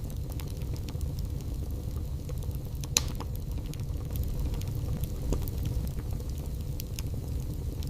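Wood fire burning in a fireplace: a steady low rumble of flame with scattered small crackles and one louder pop about three seconds in.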